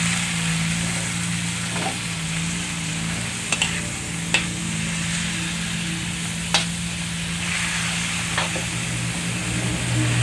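Chopped pork and onions sizzling in a metal wok as they are stir-fried, with a steady frying hiss. A handful of sharp clinks of the spatula against the pan sound through it.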